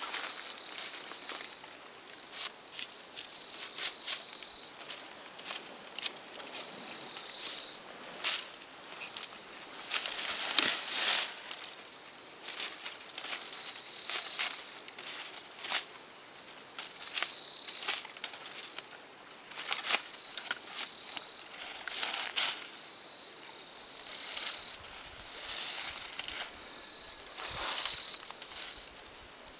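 A steady, high-pitched chorus of insects, a continuous shrill drone that dips and swells every couple of seconds. Scattered short clicks and knocks run through it.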